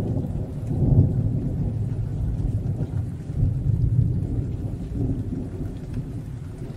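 Deep rolling thunder sound effect under a logo reveal, swelling about a second in and then slowly fading.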